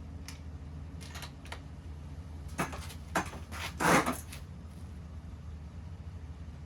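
A rifle being handled at the bench: a few light metal clicks, then three sharper clacks, the last and loudest about four seconds in.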